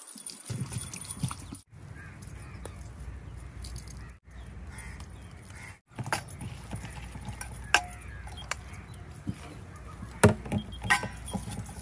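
Light metallic clinking and jangling of metal bracelets and steel dishes as hands work raw meat and spice marinade in a steel bowl on a steel tray, with a few sharper clinks near the end. The sound breaks off briefly three times.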